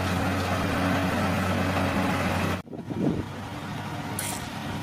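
Engine of heavy construction machinery running steadily, cut off abruptly about two and a half seconds in. A quieter engine hum follows, with a brief hiss near the end.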